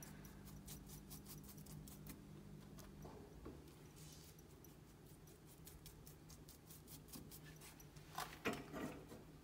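Near silence: room tone with a faint steady hum and faint light ticks, and a brief faint voice near the end.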